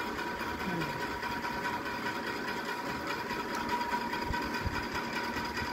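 A steady machine-like hum, with a faint, even high tone over it.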